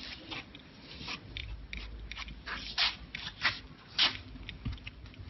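Foam jigsaw floor mat being handled, giving irregular crackling and scraping with a few sharper clicks, the loudest around three and four seconds in.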